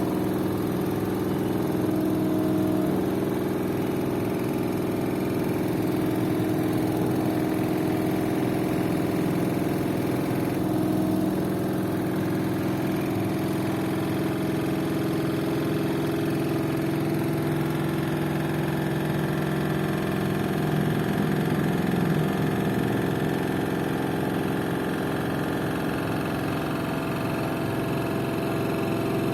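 LG FV1450S1B front-loading washing machine spinning at a steady speed, a constant hum with a buzzing rattle in it. The odd noise during spin sounds like a bolt that isn't tight enough.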